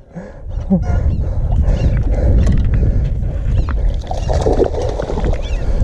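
A hooked largemouth bass splashing in shallow, grassy water as it is reeled in to the bank, over a heavy low rumble on the microphone. The splashing grows louder about four seconds in as the fish reaches the surface near the angler.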